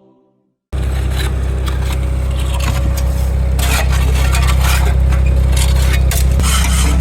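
Diesel engine of heavy earthmoving equipment running steadily under load, with scraping and clattering of dirt and steel over it. It cuts in suddenly under a second in, and the scraping grows louder near the end.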